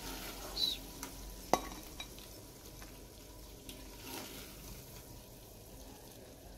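Thick curry being scooped with a plastic spoon from an aluminium pot into a glass bowl: soft scraping with a few light clinks, the sharpest about a second and a half in.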